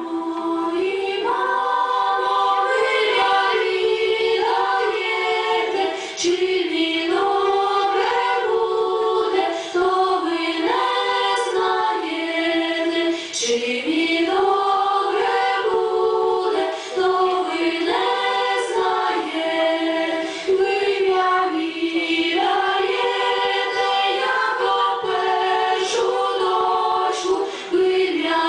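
Young women's choir singing a Ukrainian folk song a cappella, in long held notes.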